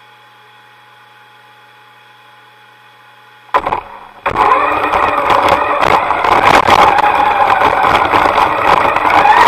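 A faint steady hum, then a sudden loud burst about three and a half seconds in as the motors of a radio-controlled FPV model start. From just past four seconds they run loudly and steadily with a high whine that wavers in pitch.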